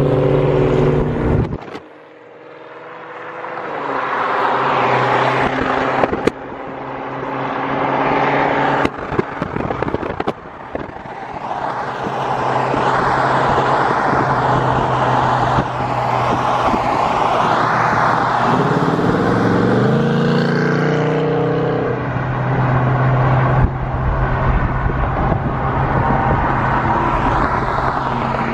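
Wind and road noise rush through an open car window at cruising speed, over the steady drone of muscle-car engines running alongside. The sound drops out briefly near the start and builds back up. About two thirds of the way through, an engine revs up.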